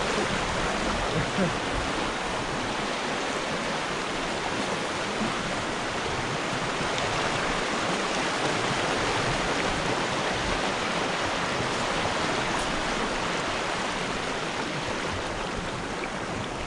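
River water rushing over rocks in shallow rapids: a steady rush, growing a little fainter near the end.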